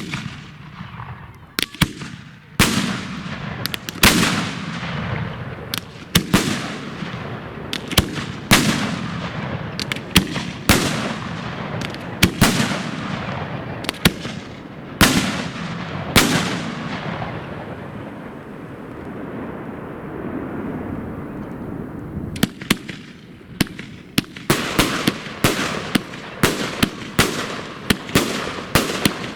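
Consumer fireworks going off: a run of sharp bangs about every second or two, each followed by a long fading hiss. After a quieter stretch, rapid cracking reports come several per second near the end.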